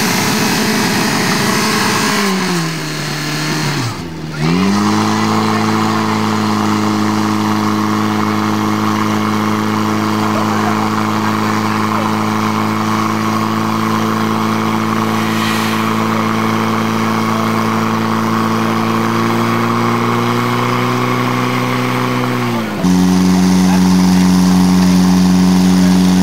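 Portable fire pump engine running at high, steady revs while pumping water into the attack hoses. Its pitch sags about two seconds in, climbs back up about four seconds in and holds, and the sound gets louder near the end.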